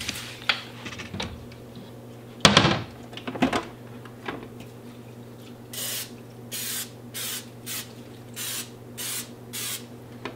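Aerosol cooking-oil spray can spraying onto an open electric contact grill in about seven short hissing bursts during the second half. A loud clunk comes about two and a half seconds in.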